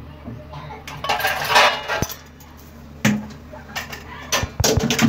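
Dishware being handled: a short scraping rustle about a second in, then a few sharp clinks and knocks, with a quick cluster of them near the end.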